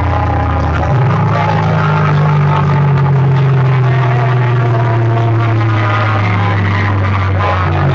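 Loud DJ sound-system music played through big speaker stacks, dominated by a held deep bass note that steps up in pitch about a second in, with fainter higher tones over it.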